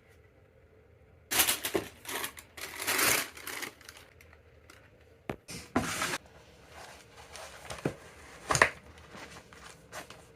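Paper packaging crinkling and rustling in bursts as a shoe box is unpacked, followed by a few sharp knocks and clicks from handling the box. The loudest click comes near the end.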